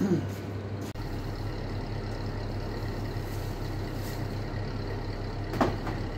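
A motor vehicle engine running with a steady low hum, with one short rising squeak near the end.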